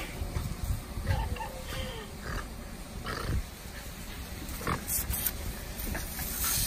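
Staffordshire bull terrier growling and grunting in short bouts as it plays in a spray of water, over the steady hiss of the spray.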